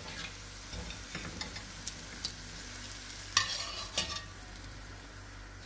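Hot oil sizzling in a karahi, with a metal wire skimmer scraping and clinking against the pan while fishing out a fried bitter gourd. The sharpest clink comes about three and a half seconds in.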